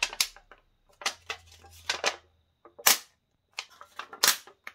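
Thin aluminium sheet cut from a mini Coca-Cola can being bent flat by hand, crackling and popping with sharp irregular snaps as the metal flexes. The loudest snaps come about three seconds in and shortly before the end.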